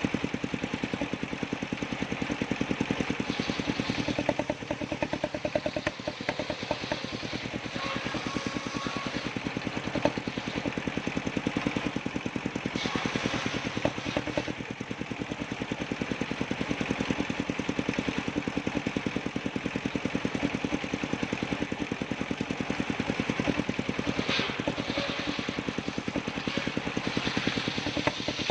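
Engine driving a circular sawmill, running steadily with a rapid, even firing beat. A few brief higher-pitched sounds come and go over it.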